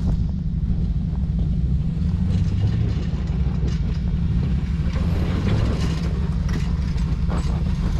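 Off-road vehicle's engine running as it crawls over rocks, a steady low rumble with the engine revving up twice, about two and a half and five seconds in.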